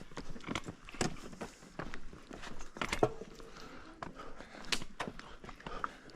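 A hiker's footsteps, uneven steps with sharp clicks and scuffs, one louder knock about three seconds in.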